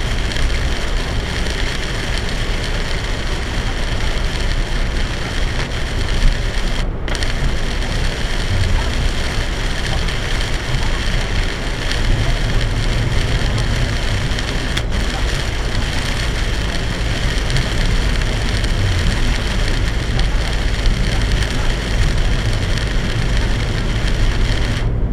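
Torrential rain falling steadily on a moving car, mixed with tyre noise on the flooded road, as heard from a dashcam inside the car.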